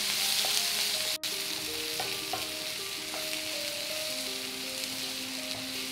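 Chopped onions sizzling as they fry in hot oil with cumin seeds in a nonstick pan, stirred with a wooden spatula. The steady sizzle drops out briefly about a second in, with soft background music of held notes underneath.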